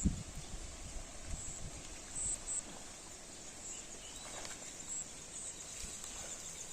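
Outdoor ambience with a steady high-pitched buzz and brief chirps, like insects or birds, and a low thump right at the start.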